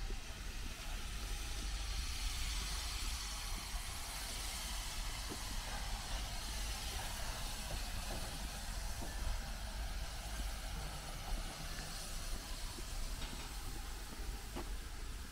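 Steam locomotive venting steam: a steady hiss that swells about two seconds in and eases off in the second half, over a low rumble.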